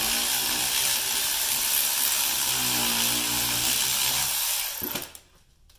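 A power tool runs steadily, spinning out a hub bearing mounting bolt, and stops abruptly about five seconds in.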